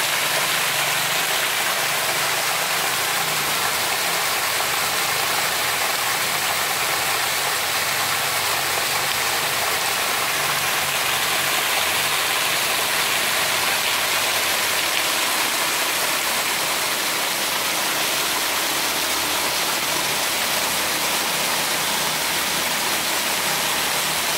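Heavy rain pouring steadily on trees and open ground: an even, unbroken hiss.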